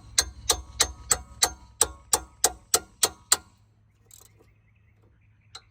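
Socket ratchet clicking in a steady rhythm, about three clicks a second, as it turns out the lower caliper bracket bolt on the rear brake. The clicking stops for about two seconds, then starts again near the end.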